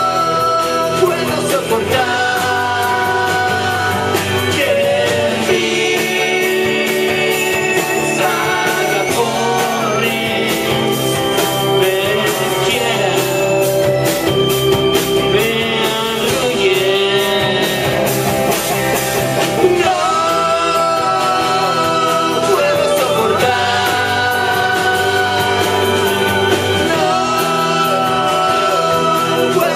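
Live band playing a song, with several voices singing together at the microphones over guitars.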